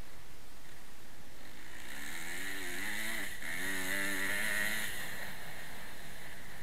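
Motocross bike engine under a steady rush of wind on the helmet microphone. About two seconds in the engine revs up, drops sharply for a moment, then revs up again and fades back under the wind near the end.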